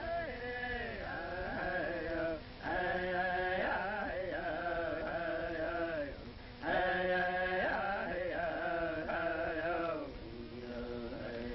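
Native American chanting: voices singing in long held phrases with brief pauses between them.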